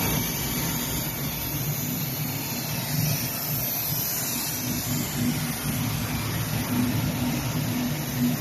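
Plastic sheet extrusion line running: a steady machine drone with a constant low motor hum under a hiss, unchanging throughout.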